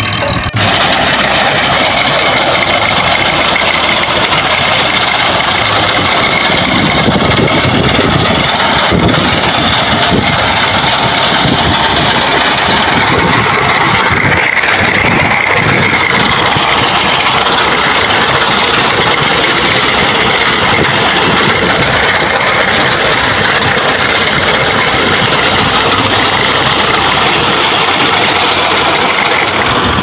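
Massey Ferguson 240 tractor's three-cylinder diesel engine running steadily at a constant loud level while it powers a front-mounted wheat reaper.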